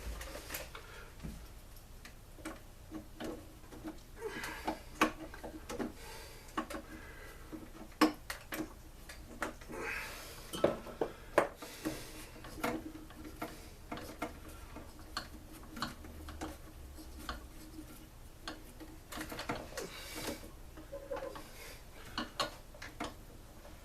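Irregular metallic clicks, clanks and taps of hand tools and parts knocking together while a small two-stroke blower engine is being taken apart.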